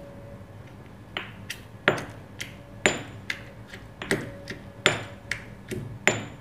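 Stone pestle pounding garlic cloves and green chillies in a stone mortar, starting about a second in with about two strikes a second. Some strikes ring briefly, stone on stone.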